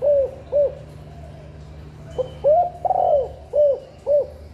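Spotted dove cooing. Two short arched coos end one phrase. About two seconds in, a full phrase follows: a short note, a coo, a longer rougher coo, then two short coos.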